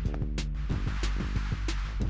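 Background music with a steady beat: regular sharp percussion hits over sustained low notes.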